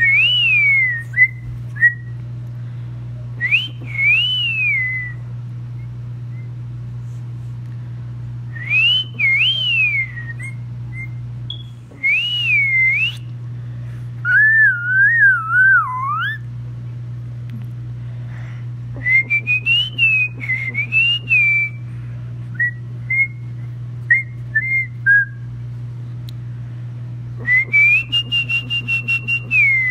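A young boy whistling short wavering phrases, each a single high note that rises and falls, with pauses between them. About halfway through, one phrase is pitched lower and slides downward.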